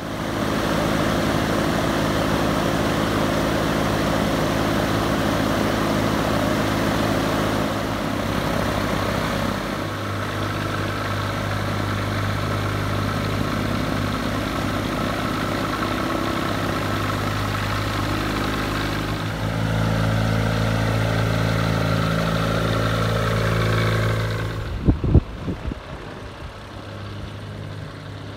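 Honda-based Viking 130 aircraft engine running at idle on the ground with the propeller turning, a steady hum that eases slightly and then picks up again with throttle. Near the end a few sharp knocks, then the engine sounds fainter.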